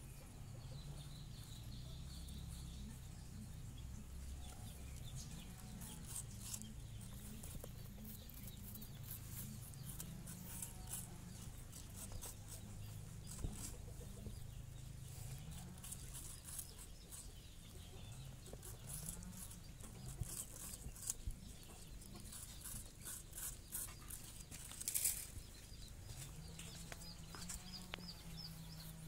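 Baby rabbits gnawing and chewing a raw apple: a run of quick, crisp crunching clicks, thickest in the middle, with a louder burst of bites near the end.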